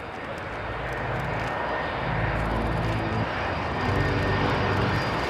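Engines of a large jet airliner flying low on approach, a steady roar that grows gradually louder.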